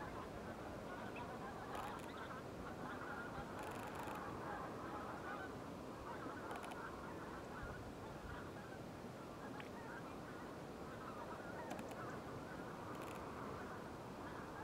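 A distant flock of geese honking and chattering continuously, with a few brief high ticks over it.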